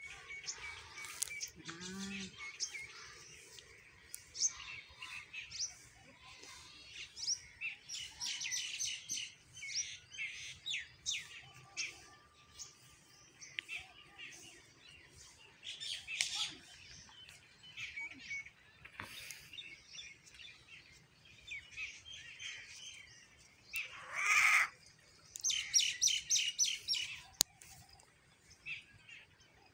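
Small birds chirping and calling in many short, high notes, with one louder call and a quick run of chirps about three-quarters of the way in. A short low sound about two seconds in.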